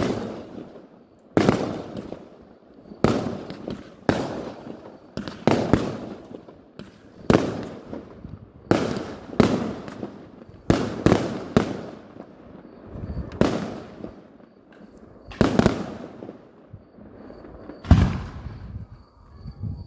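Aerial firework shells bursting in a steady string, a bang every second or two, each trailing off in a rolling echo; the loudest burst comes near the end.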